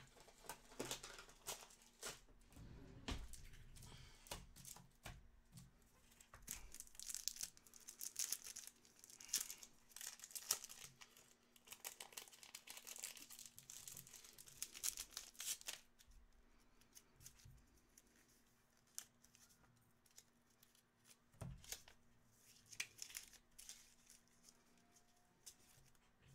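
Trading-card pack wrappers being torn open and crinkled by hand: a run of faint tearing and rustling, dense for most of the first two-thirds, then only a few scattered rustles.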